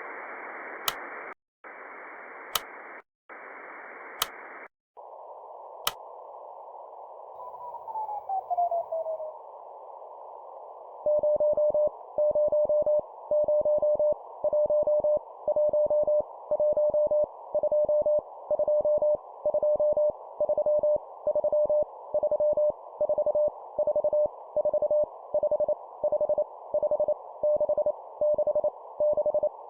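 Morse code at 25 words per minute: a single steady tone keyed on and off in an even rhythm, over a band of hiss, starting about eleven seconds in. Before it come bursts of hiss cut off by sharp clicks, then a steadier hiss with a tone gliding down in pitch.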